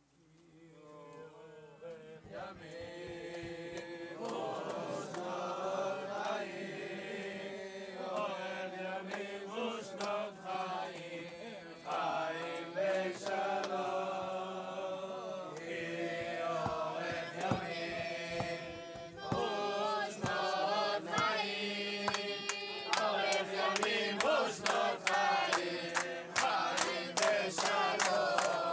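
A crowd of men singing a religious song together, fading in at the start. About two-thirds of the way through, rhythmic hand clapping joins the singing at two to three claps a second and keeps up to the end.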